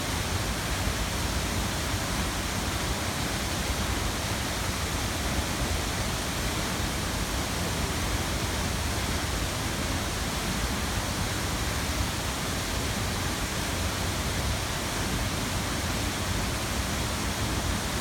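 Waterfall rushing: a steady, even roar of falling water with no breaks.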